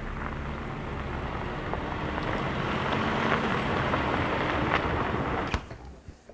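Minivan driving on a snow-covered road: a steady engine hum and tyre noise that grow louder as it approaches, then cut off suddenly about five and a half seconds in.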